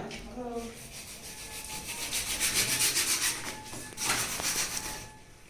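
Fast, even rasping strokes of something rubbed hard against a rough surface, like sanding or scraping, loudest in the middle, followed by a short burst of scraping noise about four seconds in.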